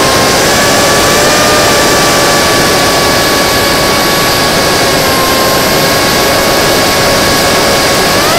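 Electric motor and 5045 bullnose propeller of an FPV model plane, heard from its onboard camera: a steady whine at part throttle over rushing wind noise. The pitch sags slightly about five seconds in, then climbs sharply right at the end as the throttle is opened.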